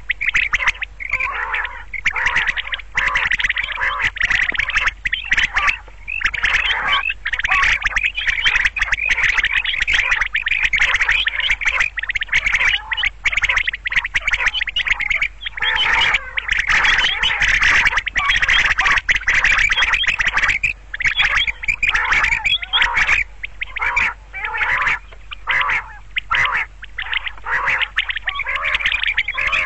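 Common quail calling over and over in fast, dense runs of harsh notes with hardly a break, over a faint steady low hum.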